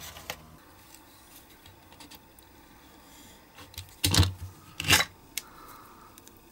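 Handling noises on a workbench: faint rubbing and small clicks. About four and five seconds in come two loud knocks, as a plastic utility knife is set down on a cutting mat and a cured silicone mould block is handled.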